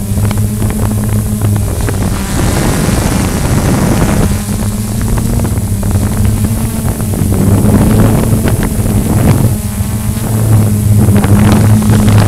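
Walkera QR X350 quadcopter's electric motors and propellers running steadily as it flies: a low, steady hum under a rush of propeller wash buffeting the drone's own microphone, a little louder in the second half.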